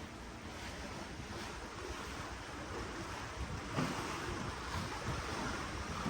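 Ocean water washing and splashing below a cruise ship, with wind rumbling on the microphone. The wash swells into a louder splash about four seconds in.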